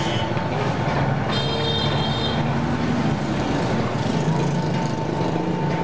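Electric pig-skin strip-cutting machine with a 1 HP motor and steel rollers and blades, running steadily with a constant hum. A brief high-pitched tone sounds for about a second, starting about a second and a half in.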